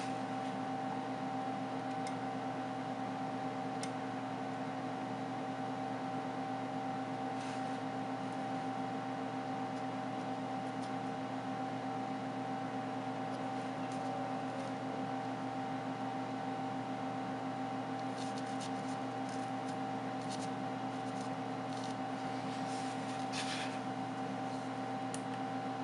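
Steady electrical hum with fixed tones, like a fan or small appliance running, with a few faint clicks and taps from handling the phone on the desk, a cluster of them about two-thirds of the way in.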